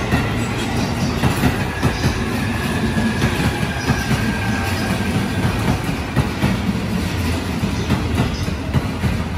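JR East E531 series electric multiple unit rolling slowly past, its wheels clacking over rail joints over a steady low rumble, with a thin high whine in the first half.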